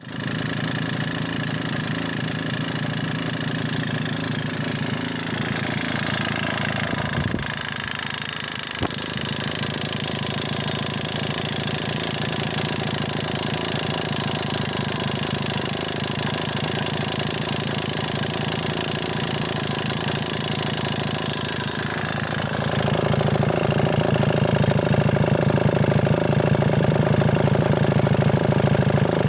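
Sachs 98 cc two-stroke single-cylinder engine of a Wanderer 11AS moped running with a rattle. It runs steadily, with a couple of brief clicks, and gets louder about three-quarters of the way through.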